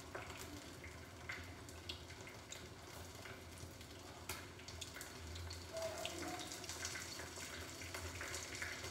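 Breaded pork strips shallow-frying in hot oil in a small pan: a faint, steady sizzle with many small crackles.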